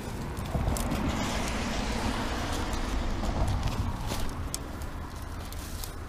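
A car passing over the road bridge overhead: a rumble that swells about half a second in and fades after about four seconds. Footsteps scuff and click on snowy rocks and dry grass throughout.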